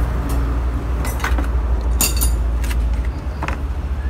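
A handful of short scrapes and clinks from a metal trowel and tools worked against a wet cement pot-stand mold, over a steady low rumble.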